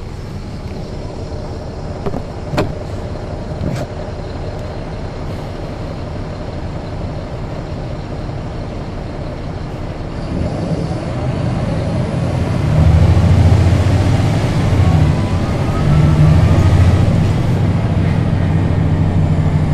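Caterpillar C13 ACERT diesel engine of a NABI 40-foot transit bus with a ZF Ecomat automatic transmission, heard from the rear seat inside the bus. It runs steadily at first, then from about halfway in pulls harder and gets much louder, with a rising whine and a brief dip in the engine note near the two-thirds mark. Two sharp knocks come a few seconds in.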